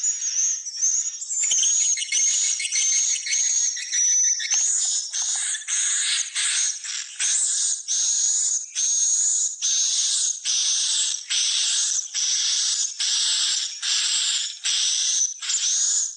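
Swiftlet calls: dense twittering for the first few seconds, then a steady run of chirps about two a second, each topped by a high whistling tone.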